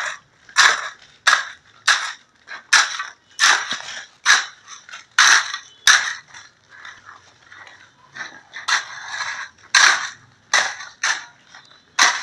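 Hand tools striking and scraping the surface of a fresh concrete floor as it is stamped, in quick uneven strokes about two a second. The strokes ease off for a couple of seconds past the middle, then pick up again.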